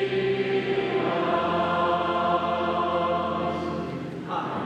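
Large church congregation singing together, the many voices holding long, steady notes.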